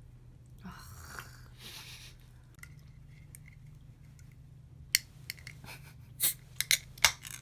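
Handling noise: a brief crinkly rustle about a second in, then from about five seconds a run of sharp clicks and taps, over a steady low hum.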